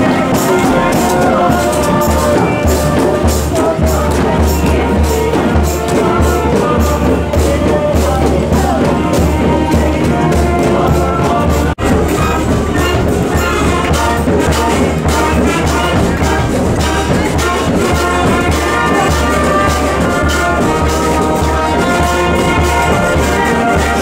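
Street brass band playing: trumpets and trombones over a steady drum beat with a heavy bass line. The music breaks off for an instant about twelve seconds in, then a brass band carries on.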